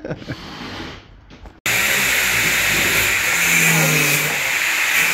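Angle grinder cutting into the steel chassis leg of a Mini, a loud, steady, harsh grinding whine that starts abruptly about one and a half seconds in, after a quieter stretch.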